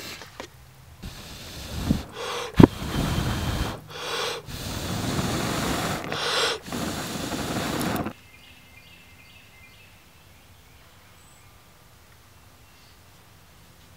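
Someone blowing hard on glowing wood coals from close up, about four long blows with short breaks for breath, and a sharp crack from the embers about two and a half seconds in. The blowing stops abruptly about eight seconds in, leaving only faint outdoor background.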